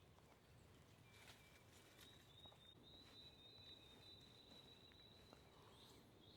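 Near-silent rural quiet with faint distant birdsong: a thin, high trill-like note held for about four seconds, starting about two seconds in, with a few faint clicks.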